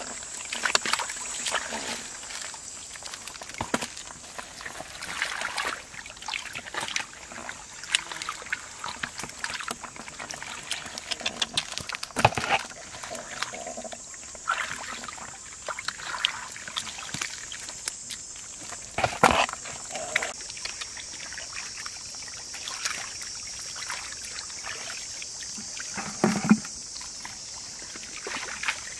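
A plastic basket scooping through shallow muddy water, with irregular splashes, sloshing and water draining out through the basket, mixed with knocks and rustles. A steady high-pitched drone runs underneath.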